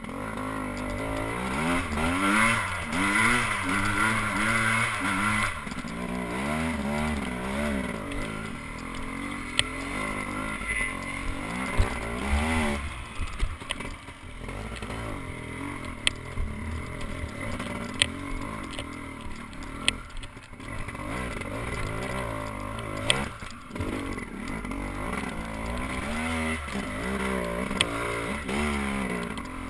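Enduro dirt bike engine revving up and down over and over as the throttle is opened and closed on a rough, steep trail. Sharp knocks come now and then.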